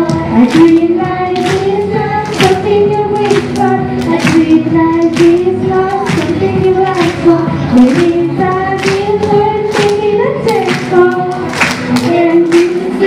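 Young girls singing a pop song into microphones over a backing track with a steady beat.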